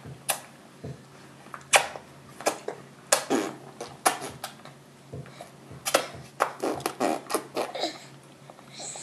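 A baby's hands tapping and slapping a high-chair tray while eating, in irregular sharp taps that come thickest a few seconds before the end.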